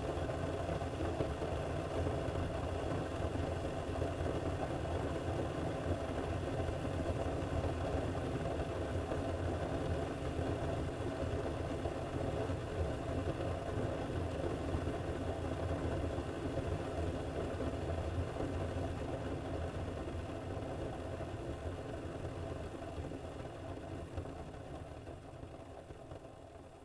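Keurig coffee maker brewing: its pump hums steadily as it pushes hot water through the pod, then dies away over the last few seconds as the brew cycle ends.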